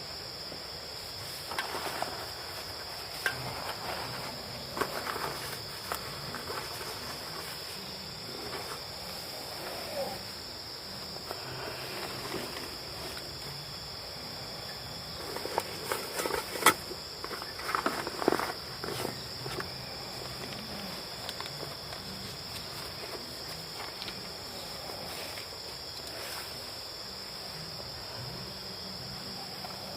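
A steady, high-pitched insect chorus holds one unbroken pitch throughout. Scattered short rustles and knocks come over it, the loudest cluster a little past halfway.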